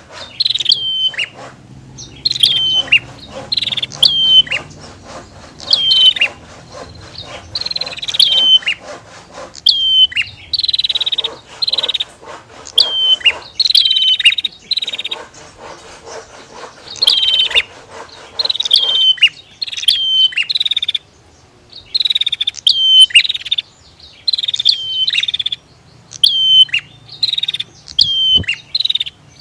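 Prinias (prenjak), female and male, calling back and forth. Short, loud notes drop sharply in pitch and repeat about once a second, with a fast dry ticking rattle between them.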